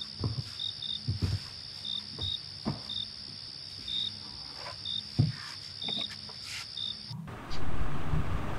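Crickets chirping: a steady high trill with short chirps every half second to second, over a few soft knocks. The cricket sound cuts off suddenly near the end and a louder, duller room noise takes over.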